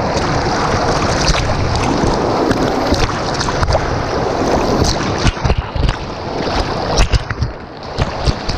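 Steady rush of moving water with wind buffeting the microphone, broken by irregular low knocks in the second half.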